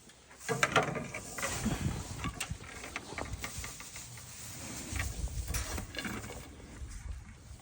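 Irregular clicks, knocks and rustling of farm gear being handled and carried, with the loudest clatter about half a second in.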